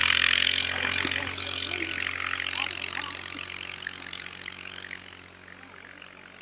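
An engine running steadily at an even pitch, under a loud rushing noise that fades over the few seconds.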